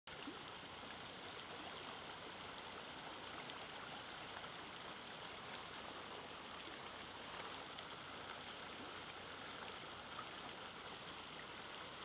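Small shallow stream flowing steadily, a constant even rush of running water.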